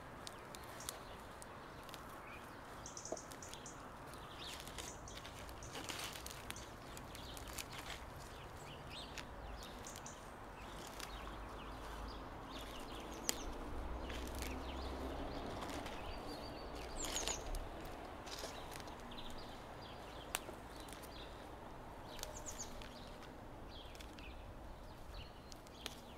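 Hand picking small wild herbs from a garden tub: leaves rustling and stems plucked with short snapping clicks. Birds chirp briefly now and then in the background.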